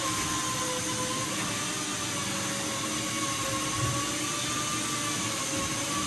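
Steady machine drone filling a large hall, with a high hum that wavers slightly in pitch, and a single soft bump about four seconds in.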